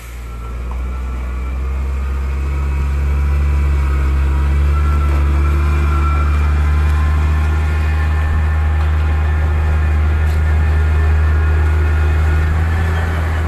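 Diesel engine of a loaded Howo A7 dump truck running low and steady as the truck reverses slowly, growing louder over the first few seconds.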